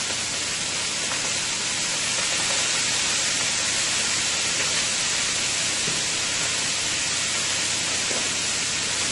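Shrimp sizzling steadily as they fry in hot oil, with fish frying in a second pan beside them.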